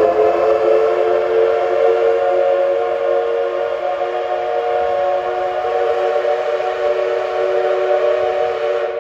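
Steam whistle of the JNR C58 class steam locomotive C58 363, blowing one long unbroken blast of several notes sounding together as the train departs. It holds steady and loud, then dies away right at the end.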